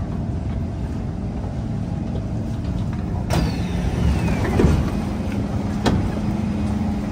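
Kawasaki C151 train's passenger doors opening at a station stop: a sharp clunk about three seconds in, then a falling whine. Another click comes near the end, over the steady hum of the standing train.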